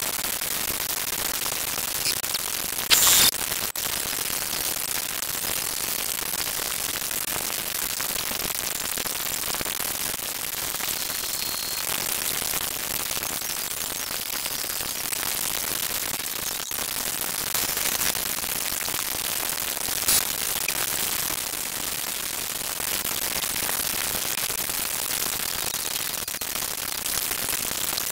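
Steady static-like hiss, strongest in the high end, broken by a few brief crackles, the loudest about three seconds in.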